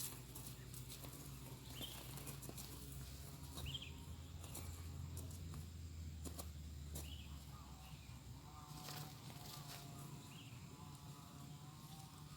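Faint outdoor ambience with a steady low hum, a few short high bird chirps spaced a couple of seconds apart, and scattered soft clicks. A faint wavering call joins in during the last few seconds.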